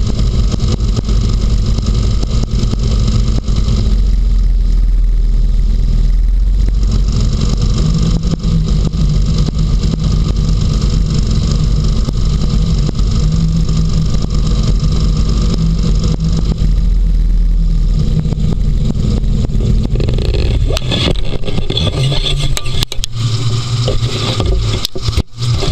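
Inflatable hovercraft's engine and propeller running steadily at cruising speed over snow and ice, a loud continuous drone. About three-quarters of the way through the sound changes and breaks up, with a few brief knocks and dropouts near the end.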